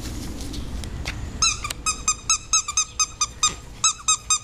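Dog squeaky toy being chewed: a quick run of short squeaks, several a second, starting about a second and a half in, after some low rustling and knocks.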